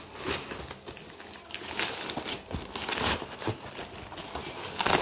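Cardboard shipping carton being torn and pulled apart by hand, with the rustling and crinkling of the wrapped box inside; the sound comes in irregular rips and rustles, loudest near the end.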